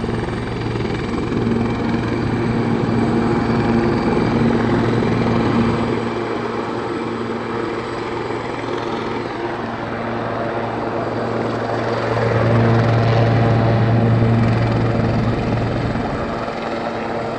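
Sikorsky S-76B twin-turbine helicopter running on the ground after landing: a steady high turbine whine over a low rotor hum. It swells louder for a few seconds about twelve seconds in, then settles.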